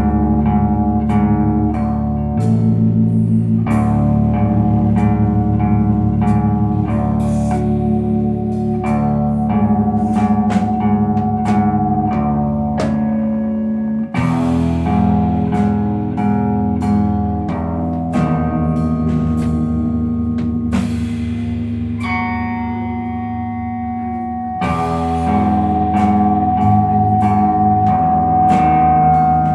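A slowcore / noise rock band playing an instrumental passage live: electric guitars and bass holding sustained chords over a steady drum-kit beat. The chords change abruptly about halfway through and again a few seconds before the end.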